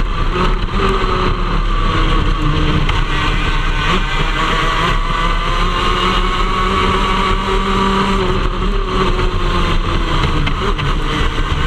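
Shifter kart's 125cc two-stroke engine running hard, heard from onboard the kart, loud and steady with its pitch drifting up and down as it is driven through the corners.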